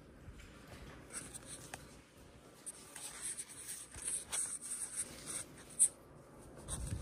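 Handling noise on a hand-held phone: quiet scratchy rubbing and rustling in short irregular bursts, with a sharper click about six seconds in.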